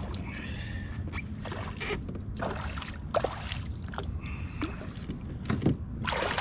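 Water splashing and knocks at a kayak as a hooked bass is brought alongside, in a series of short irregular strikes over a steady low rumble.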